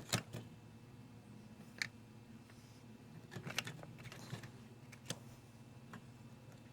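Scattered light clicks and taps, about half a dozen spread irregularly over several seconds, from small tools and parts being handled while re-soldering a TV tuner's coaxial connector.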